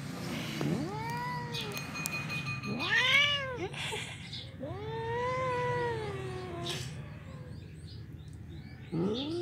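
Long-haired black domestic cat meowing in protest at being teased: four drawn-out meows, each rising and then falling in pitch. The third is the longest, about two seconds, and the last begins near the end.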